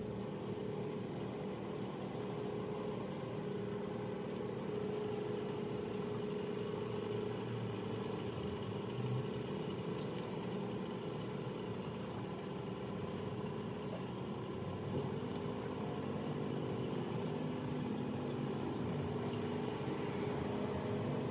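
A steady engine drone with a held hum in it, running evenly throughout.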